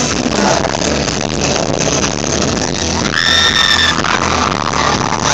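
Loud amplified live concert music with a steady beat, recorded from within the crowd on a phone. About three seconds in, a high-pitched scream from a nearby audience member is held for nearly a second over the music.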